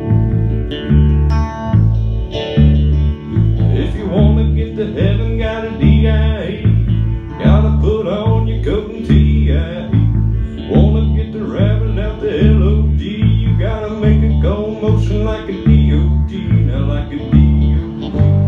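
Electric bass and Telecaster-style electric guitar playing a country blues: the bass holds a steady low pulse, and from about four seconds in the guitar plays a lead line of bent, wavering notes over it.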